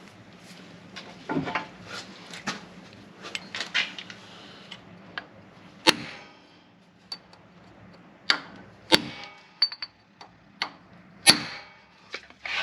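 Irregular sharp metallic taps and knocks of hand tools working a small steel sleeve loose so it slips off. Three strikes, about 6, 9 and 11 seconds in, are the loudest.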